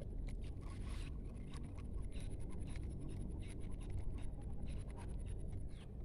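Irregular scratchy ticks and rustling over a low rumble, with a faint steady high-pitched hum throughout.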